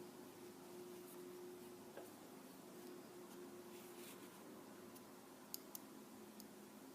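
Near silence: faint room tone with a low steady hum, and two small clicks close together about five and a half seconds in.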